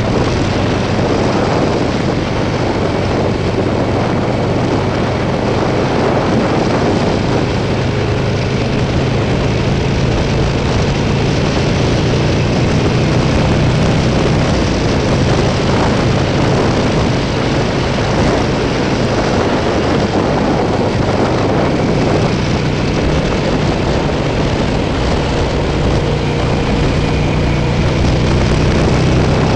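Buell XB12Scg's air-cooled V-twin engine running under way, buried in heavy wind rush on the helmet-mounted microphone. Its note climbs a little near the end.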